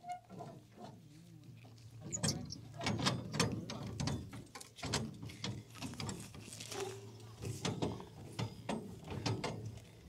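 Hand crank turning the scissor stabilizer jack under an Airstream Bambi Sport trailer, lowering the jack onto the ground to steady the trailer, in a run of uneven mechanical clicks.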